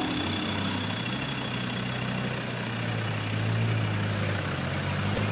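Land Rover Defender 90 engine running at low revs as it crawls over a mound with its axles crossed, the note rising a little in the middle and then easing off. A single sharp click sounds near the end.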